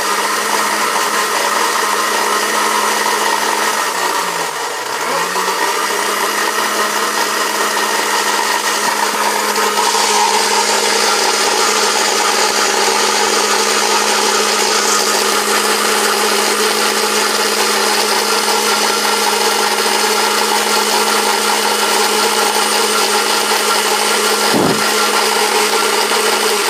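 Electric countertop blender running steadily, blending milk and raspberries into a smoothie. The motor's pitch dips and recovers about five seconds in, and there is a single short knock near the end.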